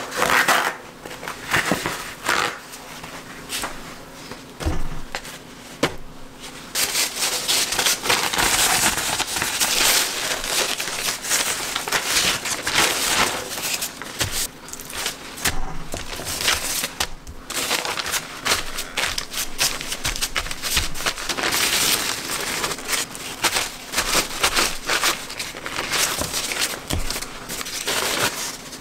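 Paper towels rustling and crinkling as they are pressed and wrapped around a raw salmon fillet to blot it dry, quieter at first and busier and louder from about a quarter of the way in.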